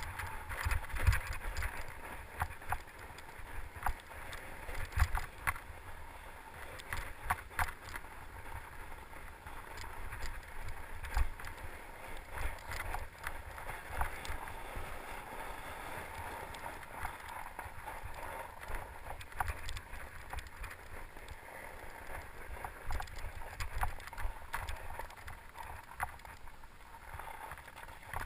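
A fat bike ridden over a snowy forest trail: steady tyre noise with frequent sharp clicks and knocks as the bike rattles over bumps. Under it runs a low rumble of wind and vibration on the camera's microphone.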